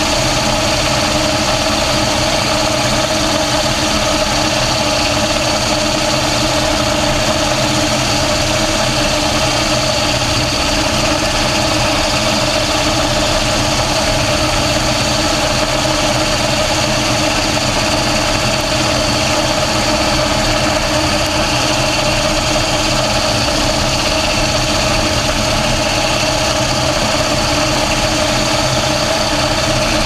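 Mobile Dimension portable sawmill running steadily while its circular saw cuts along a squared log, an even engine drone with a constant high whine over it.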